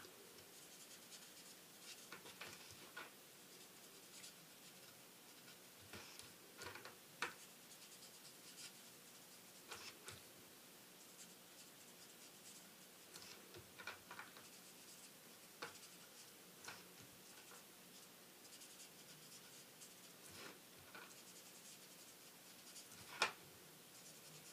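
Faint scratching of an alcohol marker's tip stroking across stamped cardstock in short, irregular strokes while colouring, with one sharper tap about a second before the end.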